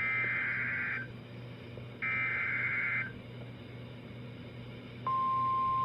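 EAS SAME header on NOAA Weather Radio: two one-second data bursts of two-tone warbling, a second apart. About five seconds in, the steady 1050 Hz weather-radio warning alarm tone starts, signalling a new severe thunderstorm warning.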